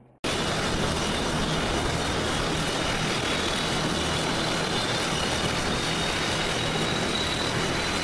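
Tupolev Tu-95 bomber's Kuznetsov NK-12 turboprops with contra-rotating propellers running on the ground: a loud, steady roar with a high turbine whine that rises slowly in pitch. It starts abruptly a quarter second in.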